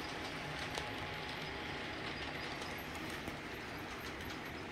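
HO scale model freight train rolling along the track at a steady pace: a low even rumble with a few faint wheel clicks, running smoothly over the repaired spot where a switch was taken out.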